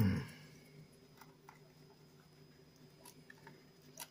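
Small die-cut cardboard model-kit pieces being handled and pushed together: a few faint clicks and scrapes of card. A low thump opens it.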